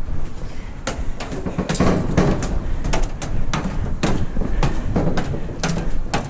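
Footsteps, sharp knocks and clicks about two a second, over a steady low rumble.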